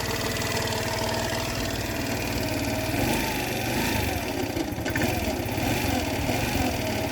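Small GY6 139QMB 50cc four-stroke scooter engine idling unevenly, its speed wavering up and down from about three seconds in. The owner hears a strange noise from the variator and kick-start side, later traced to a worn kick-start bushing and gear.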